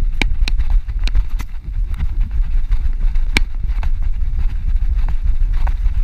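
Steady low rumble of wind and rubbing on a GoPro Hero 4 strapped to a running Shih Tzu's back, broken by irregular clicks and knocks as the camera jostles with the dog's strides.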